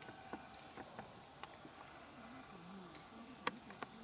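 Faint background ambience broken by a handful of scattered sharp clicks, the loudest about three and a half seconds in.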